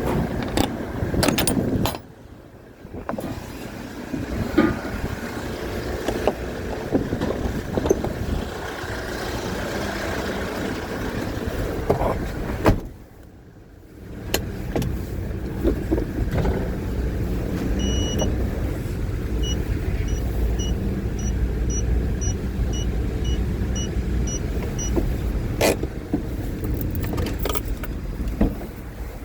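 A motor vehicle running, with a steady low rumble and scattered knocks. In the second half a series of short high beeps sounds about twice a second for several seconds.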